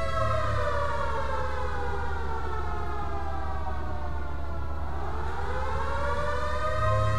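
Quarry blast warning siren wailing, its pitch sliding slowly down for about five seconds and then climbing again, over a steady low hum. It signals an imminent explosion in the quarry.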